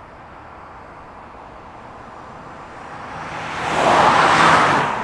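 A car passing by at speed: its engine and tyre noise swells from about three seconds in, peaks at about four and a half seconds and then fades. Faint outdoor hiss before it.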